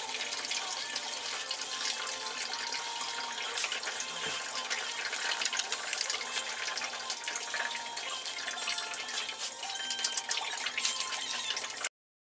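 Tap water running into a sink while wet hands rub and lather a bar of soap; the sound cuts off suddenly near the end.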